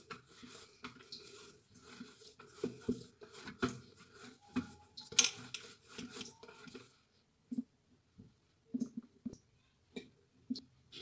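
Soft dough being pressed and turned by hand in a steel plate: light irregular knocks and small clicks for about seven seconds. Then a few sparse clicks as an aluminium lid is handled.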